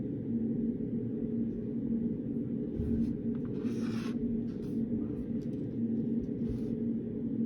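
Steady low room hum with a faint held tone, over which a few short scratching strokes of writing on paper come between about three and seven seconds in, the longest about half a second.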